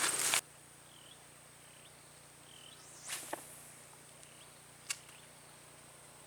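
Steady high-pitched insect drone, with a few faint short chirps over it. About three seconds in there is a quick whoosh, and near five seconds a single sharp click.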